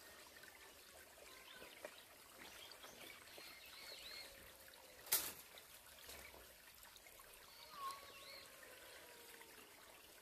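Faint trickle of a small stream, with one sharp click about five seconds in.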